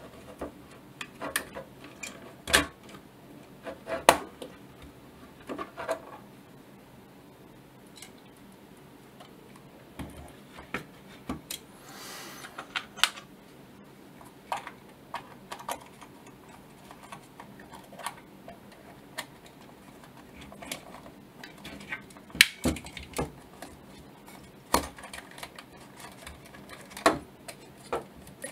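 Irregular small clicks, taps and light metallic knocks of parts of a 1936 Zeiss Ikon Super Ikonta 531 folding camera being handled and fitted by hand, with a brief rubbing sound about twelve seconds in.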